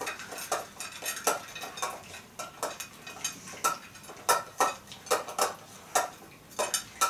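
Whippet feeding from a metal bowl on the floor: irregular metallic clinks of the bowl, two or three a second.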